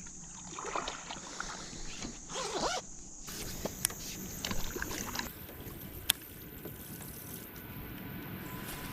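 A paddle dipping and swishing through the water as a 14-foot jon boat is paddled by hand, with a few sharp knocks scattered through.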